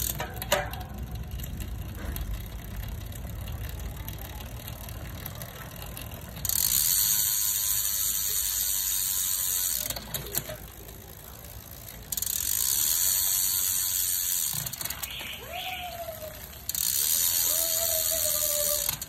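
Rear wheel of a road bike with a Shimano Ultegra R8050 Di2 electronic groupset spun by hand: the freehub ratchet buzzes in three long stretches as the wheel coasts, with the chain running over the cassette. Near the end come two short whirs of the electric rear derailleur's motor shifting gears as the adjustment is tested.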